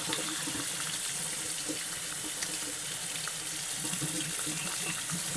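Kitchen tap running in a steady stream, the water splashing over a potato held and rubbed by hand under it and draining into the sink.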